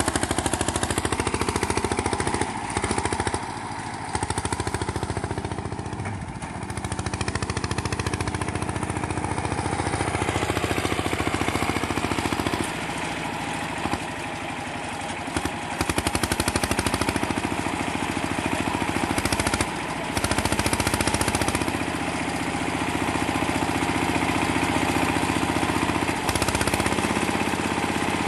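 Small engine of a homemade garden tractor running with a rapid, rattling exhaust beat. It dips in loudness a few times as the throttle and load change.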